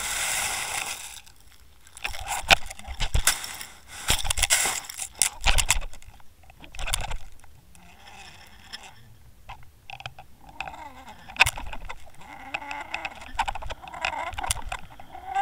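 Underwater camera housing and lead dragging and bumping across a gravel seabed: a rush of noise, then a run of sharp knocks and scrapes. Later, as the rig lifts off into open water, quieter rattles and a wavering hum.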